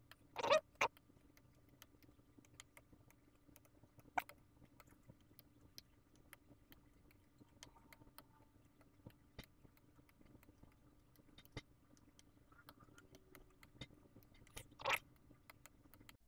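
Apple Pencil tip tapping on an iPad's glass screen: scattered light clicks, over a faint steady hum, with two louder short scuffs, one about half a second in and one near the end.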